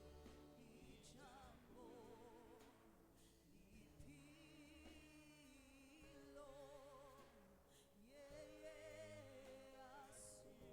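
Faint worship music: a singer holding long notes with a wide vibrato over sustained accompaniment and a low bass line.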